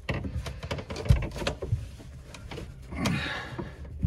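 PVC drain pipe and fittings being pushed together by hand in a dry fit: scattered plastic clicks and knocks, the loudest knock about a second in.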